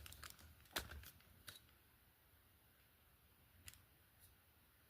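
Near silence: room tone with a few faint short clicks, twice within the first second and a half and once near the end.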